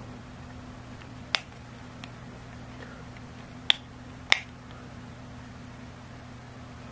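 Sharp plastic clicks as the outer front cover is pressed onto a Brica B-PRO5 action camera and the body is handled: one a little over a second in, a faint one near two seconds, then two close together around four seconds. A faint steady low hum runs underneath.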